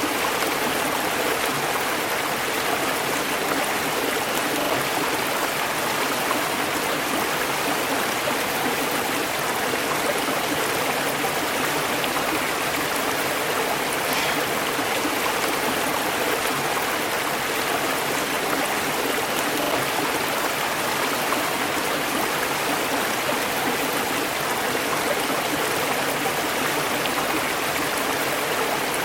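River water flowing over rocks, a steady rushing and burbling.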